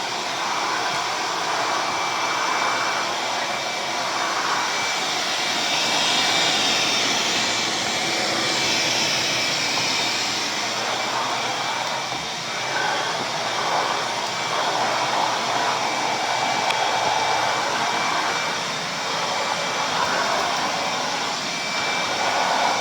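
Ridgid 5.0 HP 12-gallon wet/dry shop vac running steadily, air rushing through its hose and nozzle with a thin high whine, the tone of the airflow shifting every few seconds as it sucks up debris.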